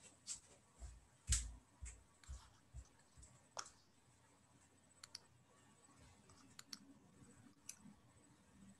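Faint footsteps walking away from the computer, a run of soft thumps about two a second, then a few faint clicks.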